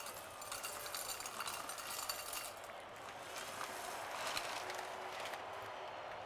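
A plastic or foil snack packet crinkling and rustling as its contents are shaken out into a ceramic bowl, in two spells of crackling.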